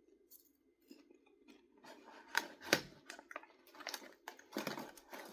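Someone chewing microwave popcorn: irregular crunches, the loudest a little over two seconds in.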